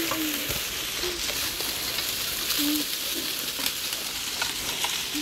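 Rubber tracks of an Action Trackchair electric tracked wheelchair rolling over dry leaves, twigs and brush, giving a steady crackling and crunching.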